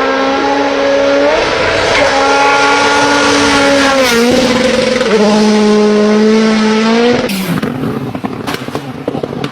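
Rally car engine at high revs, its note holding and then stepping up and down as the gears change. About seven seconds in, the engine note drops away into a rough rushing noise broken by sharp cracks.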